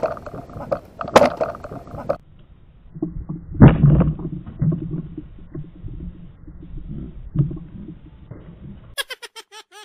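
Sharp slaps and knocks on wooden deck planks as a dropped mangrove jack flops about and is grabbed at, followed by a heavy thump about three and a half seconds in and scattered lighter knocks. A few short ringing tones start near the end.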